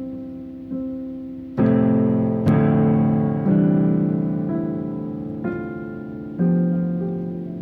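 Slow piano playing: chords struck about once a second, each left to ring and fade, with the fullest chords a little before the middle.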